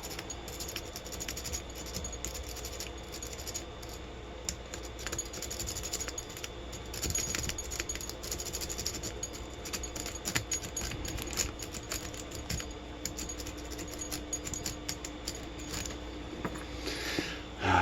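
Lock picks working the pins of a Federal 50 mm brass padlock: a worm rake scraping and clicking in the keyway in quick, irregular metallic ticks.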